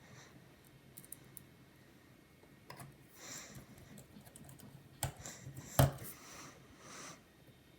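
Scattered light clicks and taps from a laptop and small tools being handled during reassembly. The sharpest knock comes about six seconds in.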